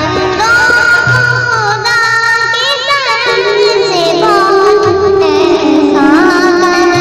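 A naat, an Islamic devotional song, sung in a winding, ornamented melody over a low sustained backing.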